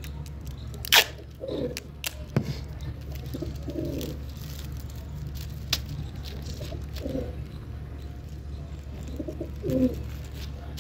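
Pigeons cooing, a short low coo every couple of seconds, over a steady low hum. About a second in comes one short sharp rip of clear packing tape being pulled from the roll, with a few fainter crackles of tape and plastic being handled.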